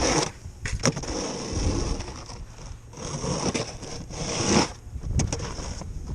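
Snow shovel scraping across the ground in long pushes of about two seconds each, with a sharp knock about a second in and another near the end.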